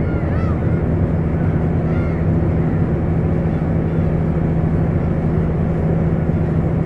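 Crab fishing boat's engine running with a steady drone, and gulls calling a few times in the first couple of seconds.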